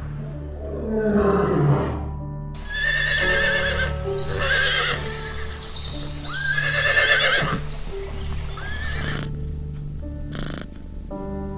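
Horses whinnying: about four high, wavering neighs between about two and a half and nine seconds in, over a steady droning music bed. About a second in, the tail of a lion's roar falls away in pitch.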